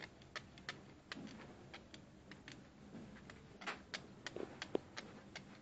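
Knife blade scraping the plus and minus terminals of a small battery: faint, irregular scratches and clicks. The scraping cleans the contacts so the solder will take.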